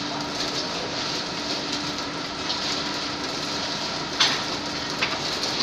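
Cement bag-packing machine running with a steady hum and hiss as paper bags are filled, with a sharp clack about four seconds in and a lighter one near the end.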